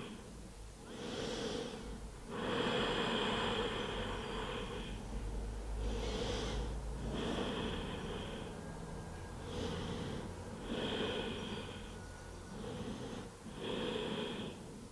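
A woman's slow, deep breathing during a held yoga stretch: about seven drawn-out breaths of one to three seconds each, with short pauses between them.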